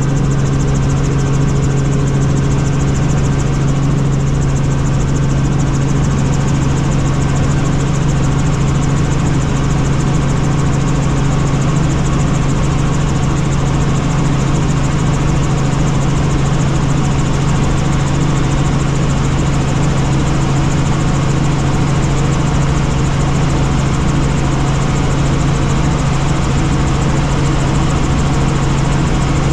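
Helicopter in flight: a loud, steady drone of engine and rotors with a strong low hum.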